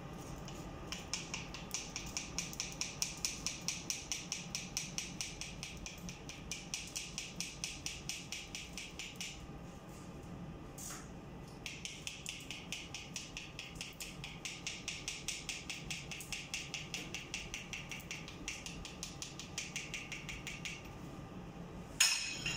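Flour being sifted through a fine-mesh sieve, rubbed through the mesh in quick, even scraping strokes, about four a second, with a short pause midway. A sharp clatter near the end as the sieve or a utensil is set down.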